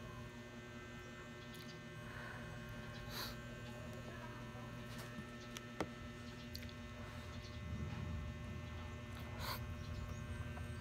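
Steady low electrical hum, with a few faint clicks scattered through it.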